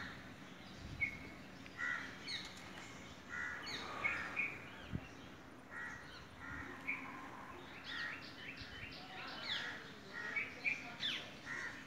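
Many short bird calls, one after another, some falling in pitch, over a faint steady hum.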